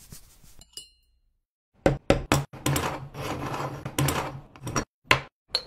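Moka pot knocked down on a table three times in quick succession, then a scraping, rasping noise for about two seconds as its halves are twisted apart, and two more sharp knocks near the end, the last with a short metallic ring.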